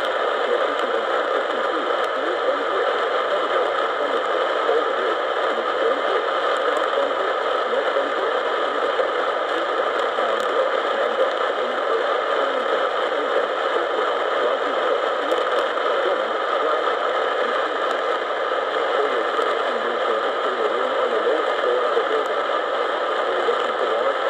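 Steady radio static hiss from a poorly received broadcast signal, with no clear voice coming through.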